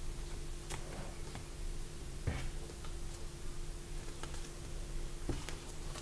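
Sketchbook pages being handled and turned: a few soft knocks and taps of paper, the clearest about two seconds in and again about five seconds in. A steady low hum sits underneath.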